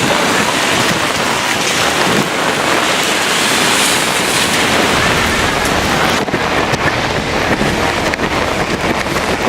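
Strong gusty thunderstorm wind buffeting the microphone over heavy rain. The deep rumble of the wind grows stronger about halfway through.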